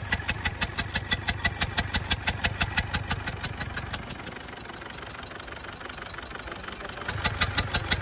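Ford Endeavour engine idling with a sharp, regular ticking, about six a second, over a low hum. The ticking fades for about three seconds in the middle and then returns. The engine has a misfire.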